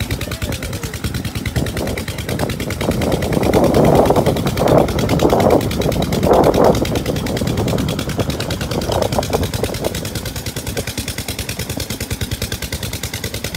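A tubewell pump engine runs steadily with a fast, even thudding beat, over water gushing from the outlet pipe into the tank. Louder bursts of noise rise over it about a third to halfway in.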